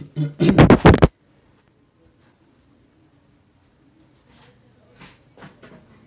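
Handling noise: fingers rubbing and scraping across the phone's microphone in a loud burst of about a second, then a few faint rustles near the end.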